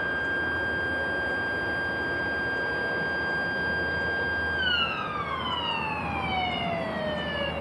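Blast warning siren sounding one steady high tone, then winding down in pitch from about four and a half seconds in. It is the warning signal before a rock blast.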